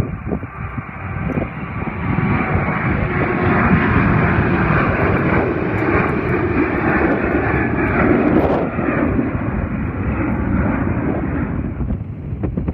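Jet engines of a FedEx Boeing 767-300 at takeoff power, a steady roar that builds about two seconds in, holds, and dies away near the end. Strong gusty wind buffets the microphone underneath.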